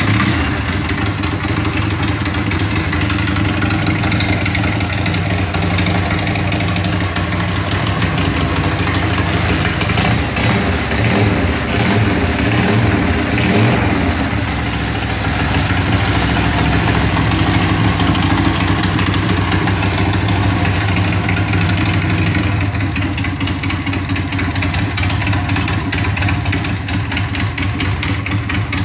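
Custom chopper's V-twin motorcycle engine running steadily, its note wavering a little about halfway through.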